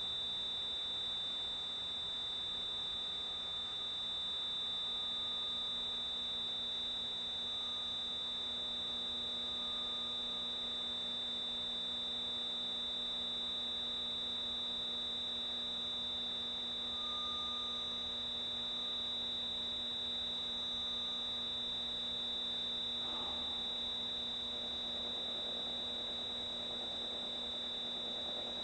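Amplified electronic drone from a live sound performance rig, made of several held tones: a high whine and a low hum, with short higher tones coming and going. About 23 seconds in there is a brief swoop, and a rougher buzzing layer follows near the end.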